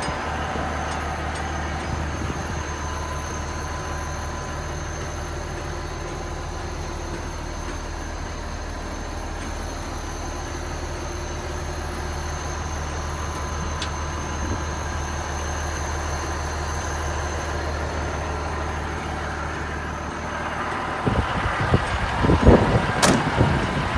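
Diesel engine of a 1989 Ford L9000 truck idling with a steady low drone, heard from in the cab. Near the end, wind buffeting on the microphone takes over.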